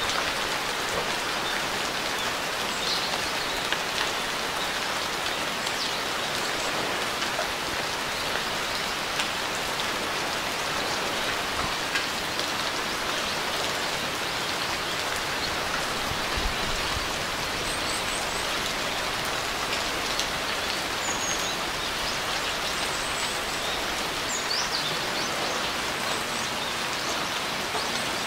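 Steady rain falling: an even hiss of many drops, with a few faint high bird chirps in the second half.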